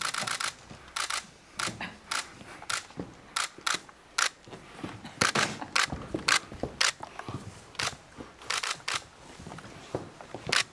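Digital SLR camera shutter firing over and over, a rapid irregular series of sharp clicks, some in quick pairs.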